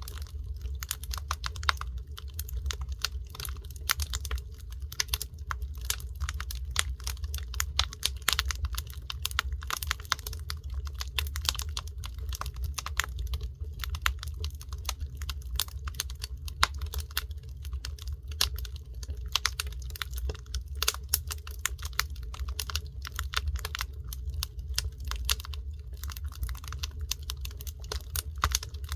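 Wood fire crackling, with dense irregular snaps and pops over a steady low rumble.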